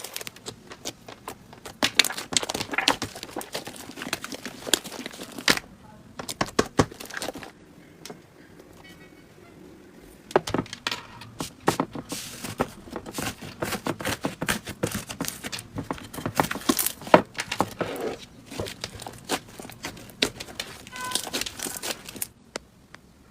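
Slime being squeezed, poked and stretched by hand, giving rapid wet crackling clicks and pops, with a lull of about two seconds near the middle.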